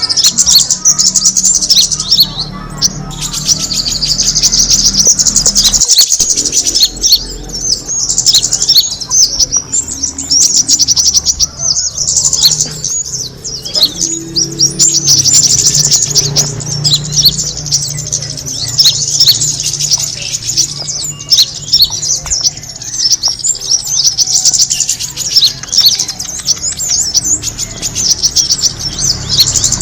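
A small songbird twittering in dense, rapid high chirps and trills almost without a break: a bird-luring call. A steady low hum runs underneath.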